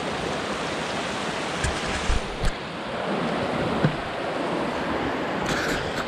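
Steady rush of a fast-flowing mountain creek, with a few short thumps about two seconds in and again near the four-second mark.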